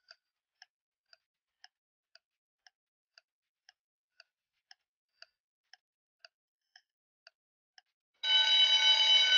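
Countdown-timer sound effect: faint, even clock ticks about two a second, then, about eight seconds in, a loud steady alarm tone as the countdown runs out.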